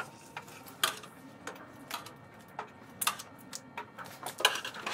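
Irregular metal clinks and ticks of steel tongs knocking against a muffle furnace and the pieces inside it, about a dozen sharp strikes over a few seconds.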